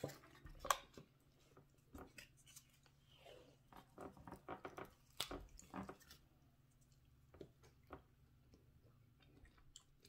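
Faint chewing, mixed with scattered small clicks and taps as food and a plastic dipping-sauce cup are handled at the table.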